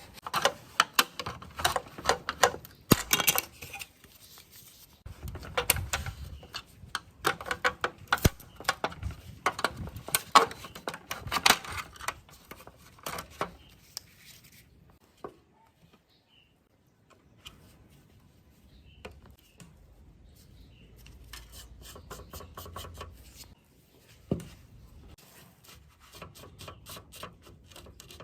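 Small hard parts and hand tools being handled at a workbench: a busy run of clicks, taps and light scraping. It thins out and almost stops midway, then picks up again more lightly, with one knock near the end.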